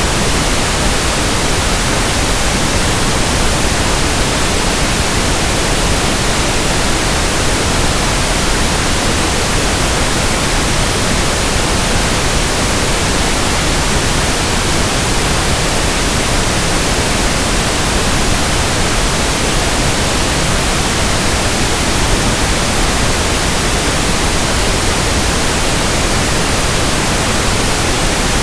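Pink noise test signal, a steady, even hiss spread across the whole frequency range at a constant loud level, generated for tuning an audio system.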